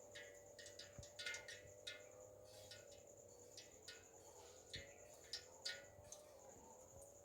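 Faint, irregular clicks and ticks, a few a second, over a steady low hum.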